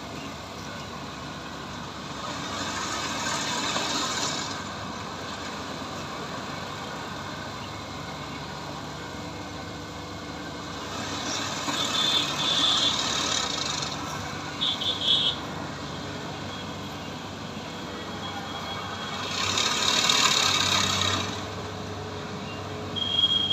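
Combine harvester's diesel engine running steadily while it harvests rice, growing louder with a rushing noise three times.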